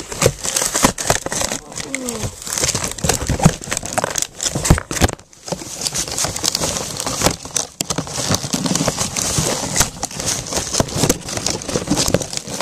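Packaging crinkling and rustling, with many sharp clicks and knocks, as a Nerf blaster's adjustable stock is taken out of its box.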